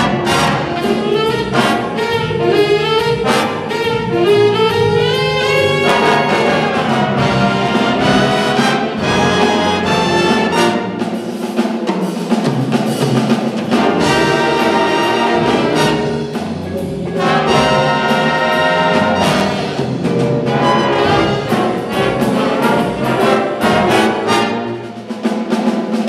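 Big-band jazz ensemble playing a blues live: trumpets, trombones and saxophones sounding together with the rhythm section.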